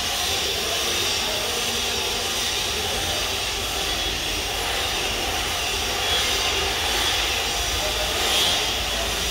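Steady, loud mechanical noise with a low rumble and a hissing upper band, like a running engine or machine.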